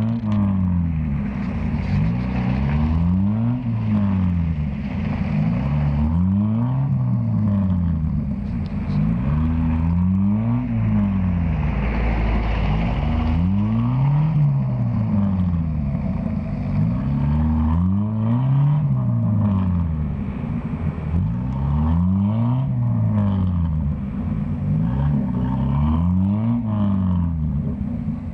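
Off-road 4x4 engine revving up and falling back again and again, about once every two seconds, as it works through mud.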